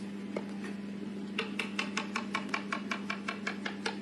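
Chef's knife rapidly slicing mushrooms on a cutting board: quick, even knocks of the blade on the board, about six a second. The knocks stop briefly at the start and pick up again about a second and a half in, over a steady low hum.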